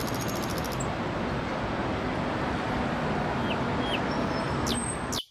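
Steady city street traffic noise as a double-decker bus drives by, cutting off suddenly near the end.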